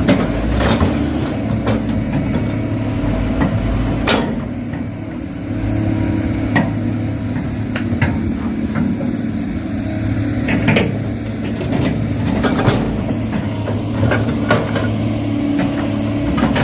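Small electric motors of radio-controlled model construction machines humming steadily, with scattered sharp clicks and knocks throughout.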